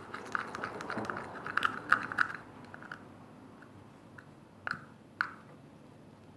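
Stirrer scraping and clicking against a small bowl as glue is mixed: rapid light clicking for the first couple of seconds, then a few sparse taps, two sharper ones near the end.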